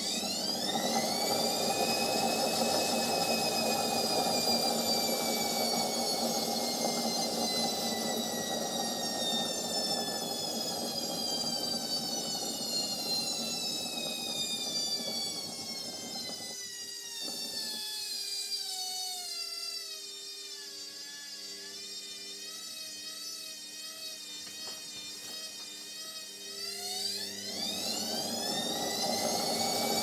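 Indesit front-loading washing machine on its spin: the motor's whine climbs sharply as the drum speeds up, then slides slowly down over about twenty-five seconds as the drum slows, and climbs again near the end. Under it runs the drum's rumble, which thins out in the last third before coming back with the second spin-up.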